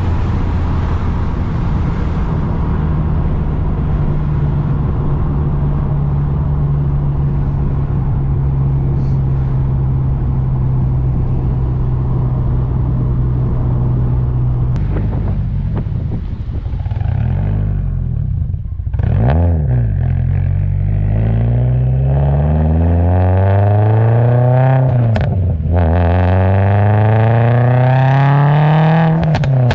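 Exhaust of an 800-horsepower Subaru STI's turbocharged flat-four on a pop-and-crackle tune: a steady cruising drone for about fifteen seconds, then the revs fall off, and two hard pulls rise in pitch with a gear change between them. Sharp pops come around the shifts.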